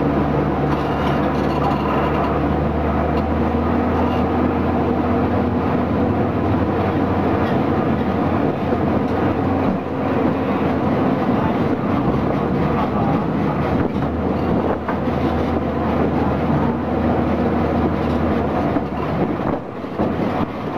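Diesel engine of the Botchan Ressha's replica steam-style locomotive running steadily just ahead, with the wheels rumbling over the tram rails. The engine's low note drops for a moment about twelve seconds in.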